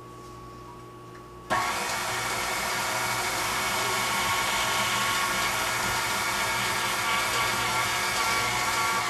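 KitchenAid Artisan stand mixer switching on suddenly about one and a half seconds in and then running steadily, with an even motor whine, as its beater mixes freshly added flour into chocolate chip cookie dough in a glass bowl.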